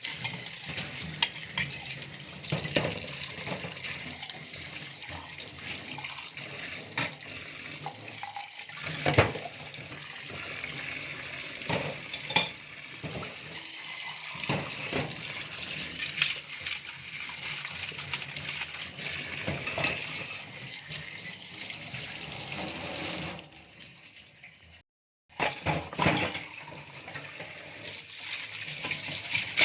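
Dishes being washed by hand in a sink: plates and cutlery clinking and knocking against each other over steady running water. The sound drops away for about two seconds near the end, then the clinking starts again.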